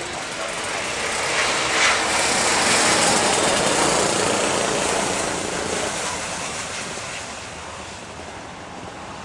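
Jet airliner, a Singapore Airlines Airbus A350, passing on the runway: a loud, even roar of its turbofan engines that swells to its loudest around three seconds in and then slowly fades.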